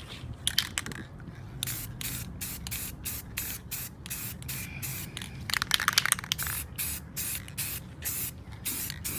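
Aerosol can of aluminum spray paint hissing in short repeated bursts, about two a second, as a first light coat goes onto a sanded wheel rim. A brief clatter comes about six seconds in.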